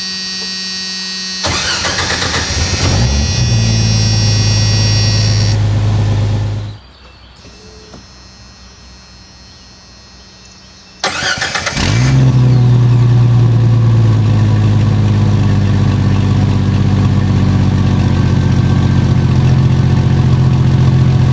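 A 1991 Jeep Wrangler YJ's 4.0-litre inline-six turns over and catches within a couple of seconds, then runs steadily. About eleven seconds in it is started again, heard at the tailpipe: a brief crank, the engine catches in about a second and settles into a steady idle. The quick starts after the Jeep has sat for hours show that the newly fitted fuel line check valve is holding pressure in the line.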